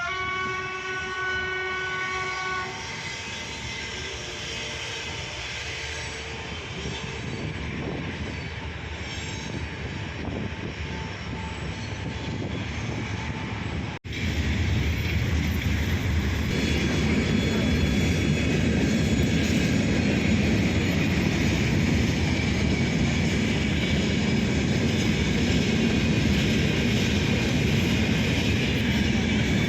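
A train horn sounds one steady blast of about two and a half seconds, followed by the steady noise of a train running on the rails. The noise grows louder after a brief cut about halfway through.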